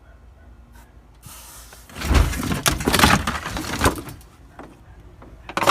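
A loud rattling, scraping clatter of gear being handled, starting about two seconds in and lasting about two seconds, then a single sharp knock near the end.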